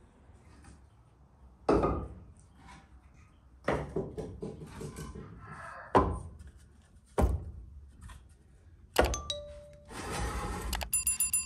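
Split firewood logs set down one by one in the stone-floored chamber of a brick wood-fired oven: about five dull wooden knocks a second or two apart, with logs scraping and shifting against each other between them. Near the end comes a denser rattle with some clicking.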